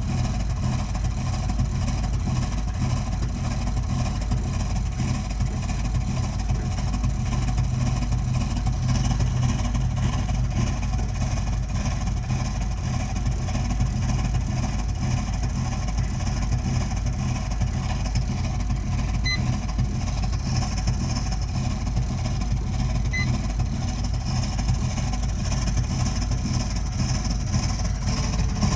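Burnham Alpine condensing gas boiler making a loud, steady low hum while it runs: the continuing abnormal noise that is the fault with this boiler.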